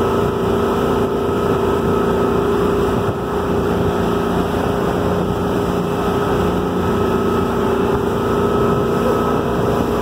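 Motorboat running at speed: a steady engine drone over the rush of its wake.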